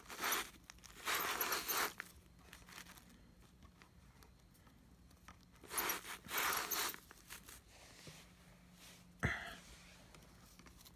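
Hands pulling and scraping matted hair and debris off a vacuum cleaner's bristled brushroll, rustling in three short bursts, with one sharp click about nine seconds in.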